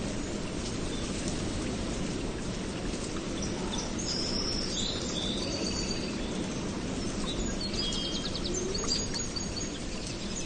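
Steady low rush of rain with small birds chirping over it: short high calls and quick trills, mostly in the middle and latter part.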